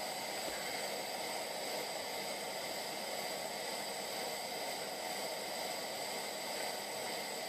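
MSR Simmerlite pressurized liquid-fuel stove, converted to burn denatured alcohol through a lathe-turned jet, running at full flame with a steady hiss under a lidded pot of water at the fish-eye stage of boiling.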